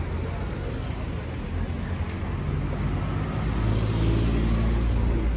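Car driving slowly past on a town street, a steady low engine and tyre rumble that swells in the second half.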